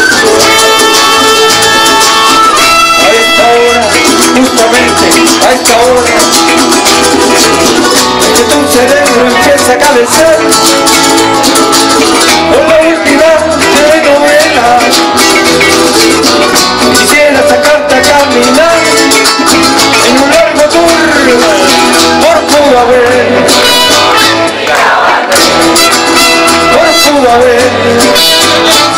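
Live band music: strummed acoustic-electric guitar and a small charango-like string instrument over electric bass, with a wavering melody line over the top.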